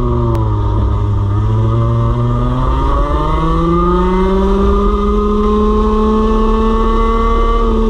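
Racing kart's two-stroke engine heard onboard, running at low revs out of a corner, then revving up steadily under full throttle along the straight, the pitch climbing for several seconds before levelling off near the end.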